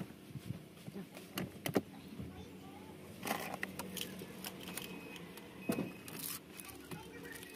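Plastic clicks, knocks and scrapes of an aftermarket head unit and its dash trim being handled and pushed into the dashboard, with crinkling of the unit's plastic wrapping, over a faint steady hum.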